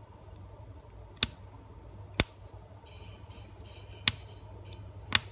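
Kindling crackling as a freshly lit wood fire catches: four sharp, separate pops a second or so apart, with faint crackle between them, over a low steady hum.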